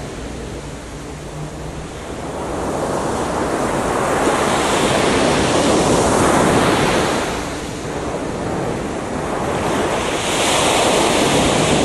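Ocean waves breaking on a beach, the surf washing in slow surges: it builds a few seconds in, eases off past the middle, and swells again near the end.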